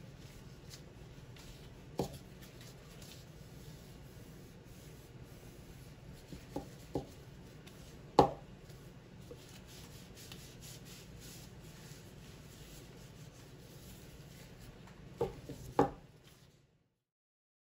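A few sharp knocks and light scraping, like a tool being handled on a workbench, over a low steady hum; the loudest knock comes about halfway through, and the sound cuts off abruptly just before the end.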